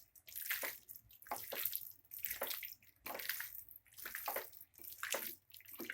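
Raw chicken pieces being mixed by hand into a thick wet marinade of egg, lemon juice and spices: wet squelching strokes, a little over one a second.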